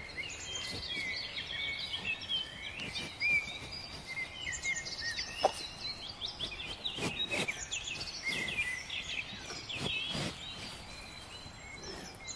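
Many small birds chirping and twittering at once in a busy, overlapping chorus, with a few short sharp knocks scattered through it.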